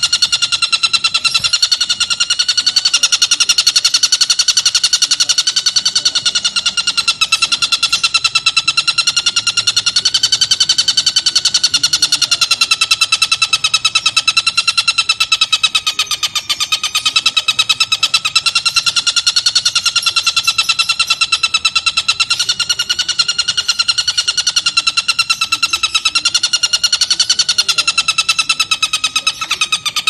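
Oriental dollarbird (tengkek buto) giving its long cackling call, ngekek panjang: a rapid, unbroken stream of harsh pulses at a slightly wavering pitch.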